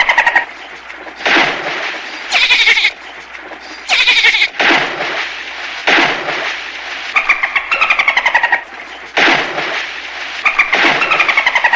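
Dolphins chattering and squealing in repeated bouts about a second long, several made of rapid pulses with a falling pitch.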